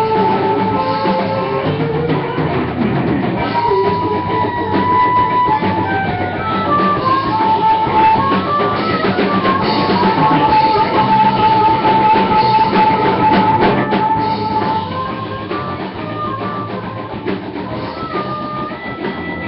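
A rock band playing live: drum kit, electric bass and guitar, with a lead line of long held notes, some bending in pitch, over the top.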